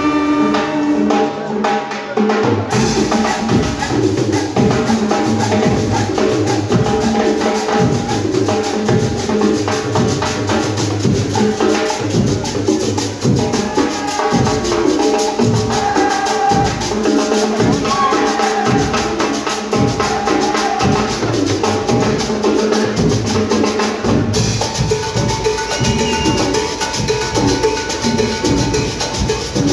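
Marching band playing a Latin-style number: a held brass chord fades, and about two and a half seconds in a steady beat on drums and hand percussion starts, with trumpets, trombones and low brass playing over it.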